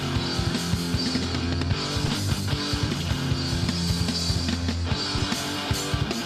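Hardcore punk band playing an instrumental passage: distorted electric guitars hold heavy chords over bass and steady drum hits.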